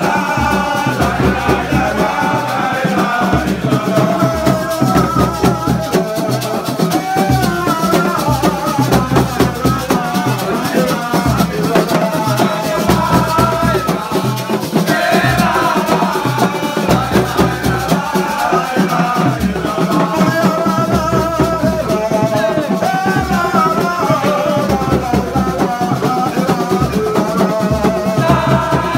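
A man leads a sung devotional chant (zikr) into a microphone, over fast, steady rattling percussion and a low bass.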